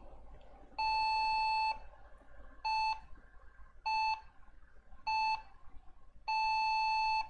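Lenovo ThinkCentre motherboard beeper sounding a POST error code: a pattern of three short beeps and one long beep, heard here as a long beep, three short ones and another long one. The code points to a RAM module not seated correctly.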